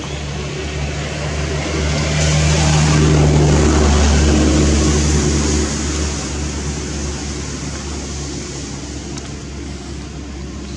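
A motor vehicle engine running close by. It grows louder to a peak about four seconds in, then fades away, as a vehicle passing does.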